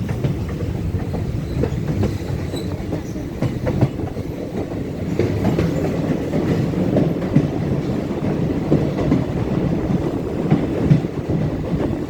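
Passenger train running, heard from aboard: a steady rumble with the wheels clacking irregularly over the rail joints.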